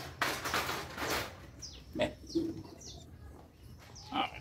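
Birds calling: short, high, falling chirps and a low cooing note about two and a half seconds in, after a brief rustle at the start.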